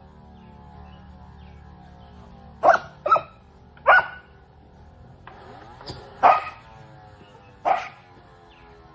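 A dog barks five times in short, sharp barks: three close together in the first half, then two more, spaced out.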